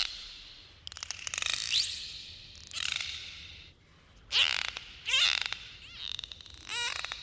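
Dolphins calling underwater: short rising whistles and rapid trains of clicks. The calls come one after another, roughly once a second.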